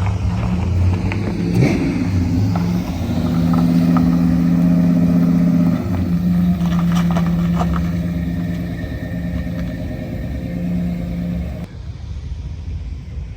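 Car engines running, with a short rev about a second and a half in; the sound drops off abruptly near the end.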